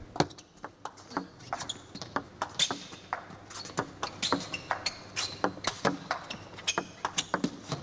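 Table tennis rally: the ball knocking sharply off the bats and the table in quick alternation, about three to four clicks a second, kept up as one long exchange.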